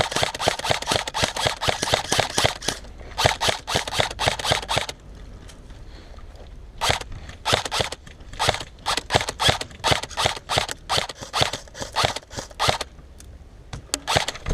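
Airsoft guns firing: a rapid stream of sharp shot clicks at first, then single shots and short bursts with brief pauses between them.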